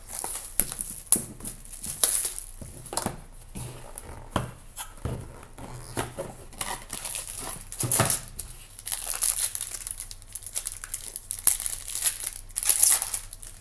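Plastic shrink-wrap crinkling and tearing as it is stripped off a trading-card box, then the box opened and the plastic pack wrapper inside torn open: a long run of crackling rustles and snaps, loudest near the middle and toward the end.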